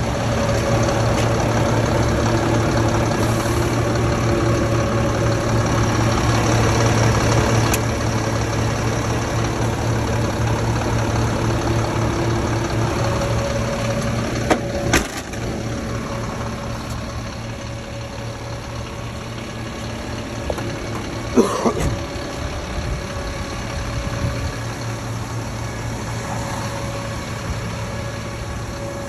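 Renault Premium 310 refuse truck's six-cylinder diesel idling steadily with a low hum, louder in the first half and easing a little later. Two short sharp clicks stand out, about halfway through and again a few seconds later.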